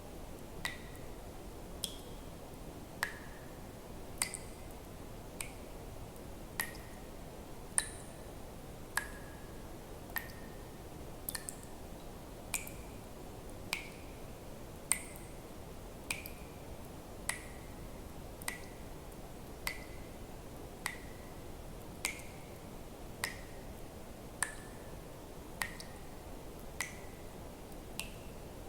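Water drops falling one by one into water, each a sharp click with a short bright plink that varies in pitch from drop to drop, about one to two a second, over a faint steady hiss.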